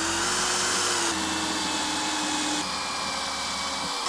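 Cordless drill running steadily as it bores a small locating hole through a steel guide rail into a wooden workbench top. The motor's whine drops slightly in pitch about a second in, drops a little further past halfway, and picks up again near the end.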